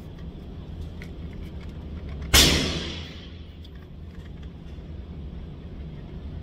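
A single unsuppressed 9mm shot from an AP5-P pistol about two seconds in, a sharp crack with a short reverberant tail off the range walls.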